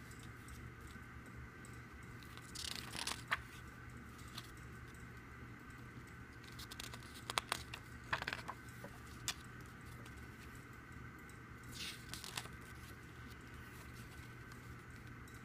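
Pages of a glossy CD photo booklet being turned by hand: about five brief paper rustles and flicks, a few seconds apart, over a faint steady hum.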